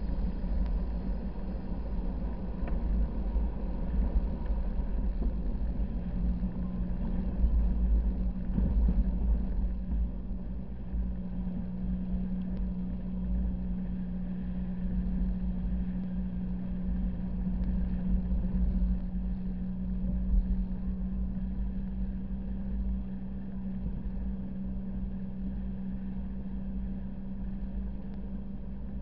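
Car driving over a sand beach: a continuous low rumble from the tyres and motion, with a steady engine drone that settles into an even tone about a third of the way in.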